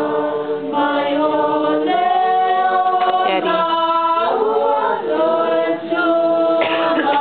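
A group of voices singing a Christmas song unaccompanied, in slow held notes that move together in harmony.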